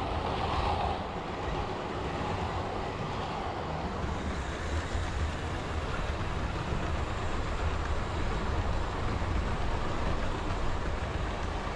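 OO gauge model train running on the layout track: a steady low rumble of wheels and motor with no let-up.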